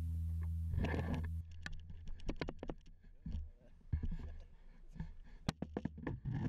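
Background music cuts off about a second in, followed by irregular clicks, knocks and scrapes from a GoPro Hero3 being handled and turned around on a boat.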